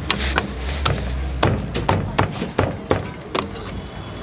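Heavy Chinese cleaver chopping crispy-skinned roast pork on a thick wooden chopping block: a run of sharp, irregular chops, a few each second.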